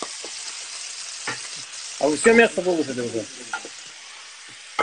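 Veal pieces and lardons sizzling as they sear in hot oil in a pan, with a few sharp knocks of a wooden spoon against the pan as the meat is turned. A brief voice cuts in about two seconds in.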